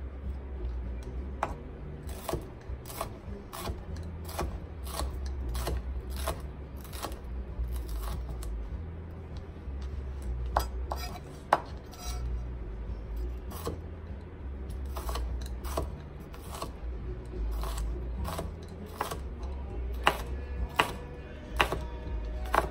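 Chef's knife chopping green bell pepper on a plastic cutting mat over a wooden board: irregular knocks and taps of the blade hitting the board, sometimes in quick runs of cuts.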